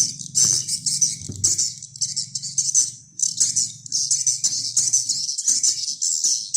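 Recorded lure call of birds: dense, rapid, high-pitched chirping chatter that breaks off briefly about three seconds in, over a low steady hum.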